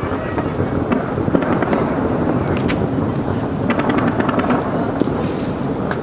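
Fireworks display: aerial shells popping and crackling over a steady background rumble, with a quick run of crackles about four seconds in.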